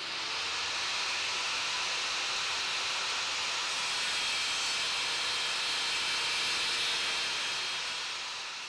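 Corded electric circular saw running steadily, a dense hissing whine with a few faint steady tones. It fades in at the start and fades out near the end.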